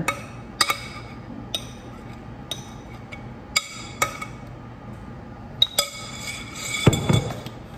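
A utensil clinking and scraping against a glass mixing bowl as cake batter is scraped out: sharp, ringing clinks about once a second, with a louder knock near the end.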